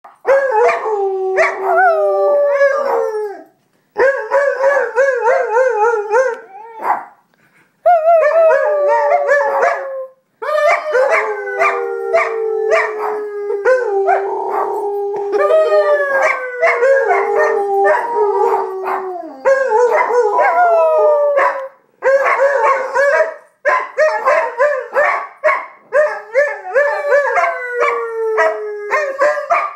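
A dog howling in long, drawn-out calls that waver and slide down in pitch, broken by a few short pauses.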